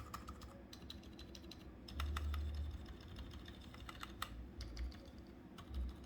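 Typing on an Akko 3068B keyboard fitted with Boba U4 silent tactile switches: a quiet, uneven run of soft keystrokes with a few sharper strokes about two and four seconds in. The build is damped with a neoprene sheet in the case and stabilizers clipped and lubed with dielectric grease.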